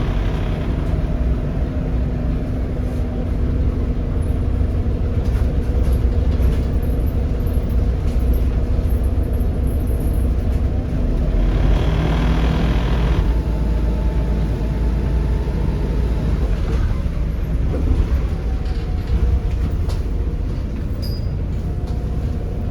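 A Volvo B7RLE bus's 7.3-litre Volvo D7C diesel engine runs steadily under way. A thin whistle comes in just after the middle and again near the end.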